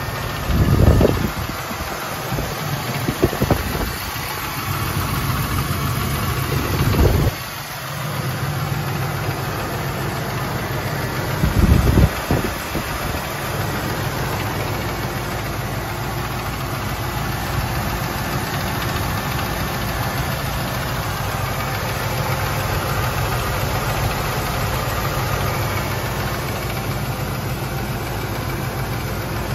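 1984 Jeep Grand Wagoneer's AMC 360 V8 idling steadily, with the tapping noise that the owner is chasing. A few short low bumps break in during the first dozen seconds.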